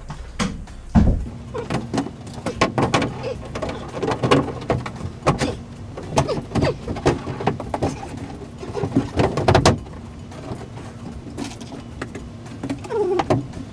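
Sterling shower wall panels knocking, scraping and squeaking as they are handled and pressed into place, with a sharp thump about a second in.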